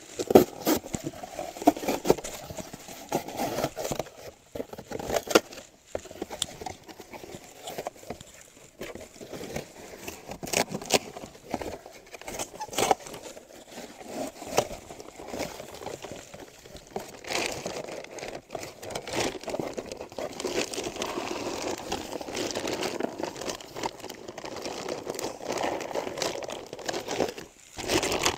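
Cardboard box and plastic dog-food bag being handled and torn open: crinkling, tearing and scattered crackles and knocks of packaging.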